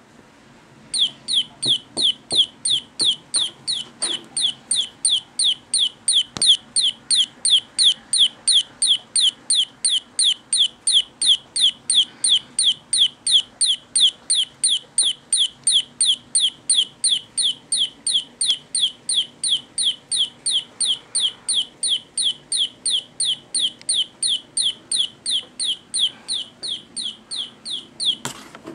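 Toy chick peeping: identical short, falling chirps repeated evenly about three times a second, starting about a second in and stopping just before the end.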